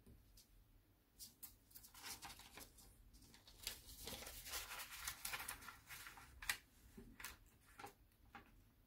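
Sheet of origami paper being folded and creased by hand: faint rustling and crinkling with scattered sharp little clicks, busiest in the middle and loudest in one crisp crackle about six and a half seconds in.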